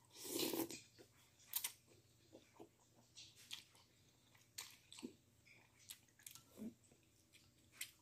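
A person slurping up noodles, one longer slurp right at the start, then quiet chewing with a scatter of small clicks and mouth sounds.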